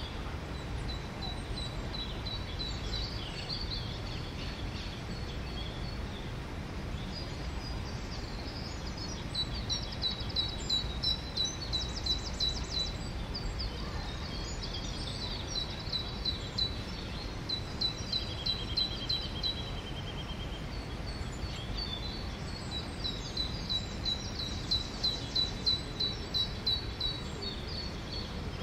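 Songbirds singing in quick runs of high, repeated chirps, livelier from about a third of the way in, with a short lower trill in between, over a steady low background rumble.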